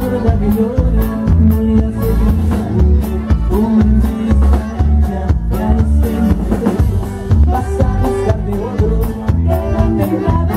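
Live Mexican conjunto band playing a song with a steady drum-kit beat, bass and a singing voice.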